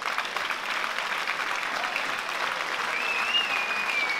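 Crowd applauding and cheering at the end of a kickboxing bout, with one wavering high whistle from the crowd about three seconds in.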